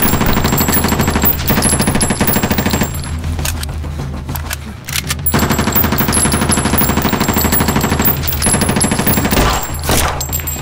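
Rapid automatic gunfire from a film's sound design, fired in two long sustained bursts: the first runs to about three seconds in, and the second starts about five seconds in and stops around eight seconds. A steady low hum sits beneath.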